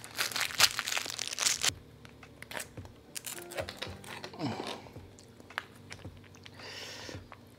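Crinkling and tearing of an MRE entrée pouch's foil-laminate packaging as it is opened. The crinkling is loudest and densest for the first second and a half, then turns to quieter scattered rustles.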